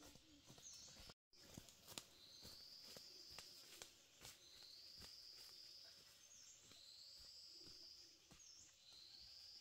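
Faint footsteps crunching on dry leaf litter, with a bird repeating a drawn-out, slightly rising high call about every one and a half seconds.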